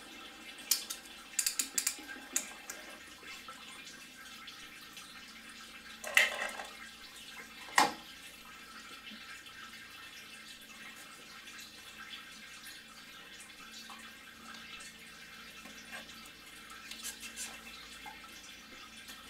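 Metal hand tools clicking and clanking as hose clamps and coolant hoses are worked off a VR6 engine, with two louder knocks about six and eight seconds in. Coolant trickles steadily as the cooling system drains.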